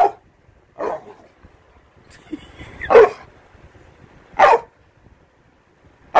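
A pit-bull-type dog giving five short barks, spaced a second or more apart, the one about three seconds in the loudest.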